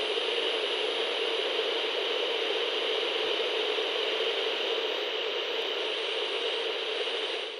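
CB radio static: a steady, even hiss with no voice on the channel, and a faint high whistle wavering on top.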